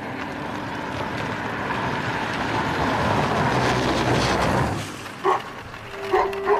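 A GAZ Volga sedan drives up and passes close, its engine and tyre noise swelling steadily, then cutting off abruptly just before five seconds in. A few short, sharp sounds follow near the end.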